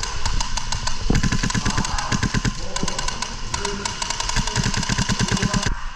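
Airsoft gunfire: an HPA-powered KWA MK18 airsoft rifle firing two long rapid full-auto bursts, about a second in and again past the middle, among a steady crackle of other guns' shots and BBs hitting plywood walls.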